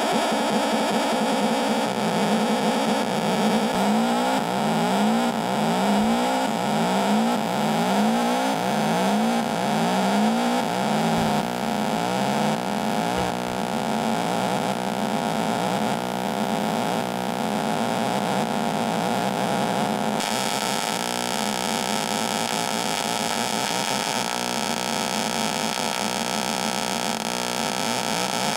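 Neon-lamp relaxation oscillator circuit putting out a noisy electronic drone. In the first half a warbling sweep repeats about twice a second; it then gives way to a steadier buzz, and the high hiss changes about two-thirds of the way through.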